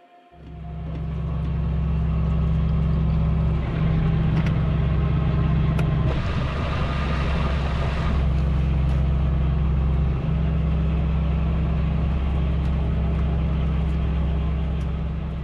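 A sailboat's inboard diesel engine running steadily with a low hum, cutting in just after the start and fading near the end, with a hiss of wind or water over it.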